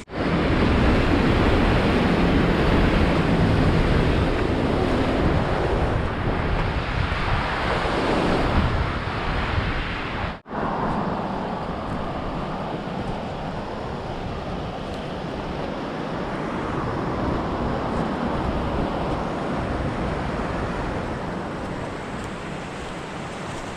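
Fast-flowing mountain creek, running high with snowmelt: a steady wash of water noise. It cuts out for an instant about ten seconds in and is slightly quieter afterwards.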